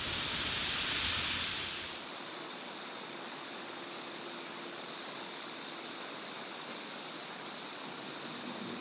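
Bath bomb fizzing as it dissolves in a glass bowl of water: a steady hiss that eases slightly about two seconds in.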